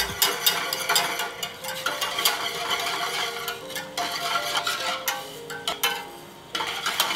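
Wire whisk stirring quickly in a stainless steel saucepan, its wires clicking and scraping against the metal as sugar and pectin are poured into warm water. It pauses briefly about six seconds in, then resumes.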